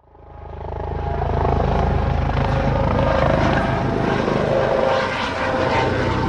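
Helicopter rotor and engine running steadily, with a rapid beating chop; it fades in over about the first second.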